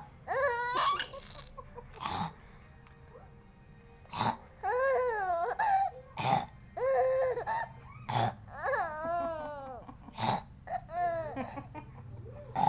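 A person snoring in short, sharp snorts about every two seconds. After each snort a baby laughs and squeals in high, wavering bursts.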